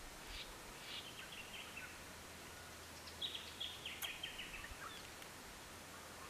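A small bird singing a quick run of notes that falls in pitch, heard twice about three seconds apart, over faint outdoor background. A single sharp click sounds about four seconds in.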